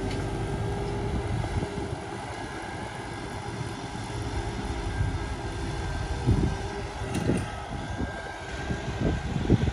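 John Deere tractor's diesel engine running steadily as it pulls a disc harrow through tilled soil, a steady droning hum. A few brief low thumps come in over the last few seconds.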